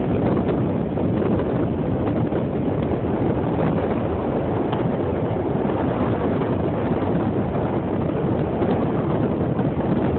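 Strong wind blowing across the microphone, a steady rumble with no break.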